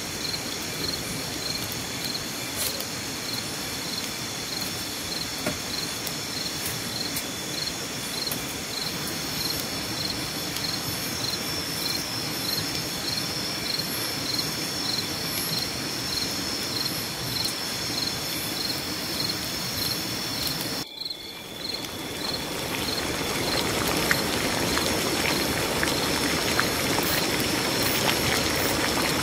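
Night insects (crickets) chirping steadily, one with regular pulsing chirps. About 21 seconds in the sound cuts and a louder, even hiss takes over: green bamboo tubes of food simmering and steaming over a wood fire.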